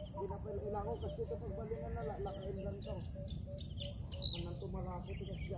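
Insects trilling in one steady, high-pitched, unbroken tone.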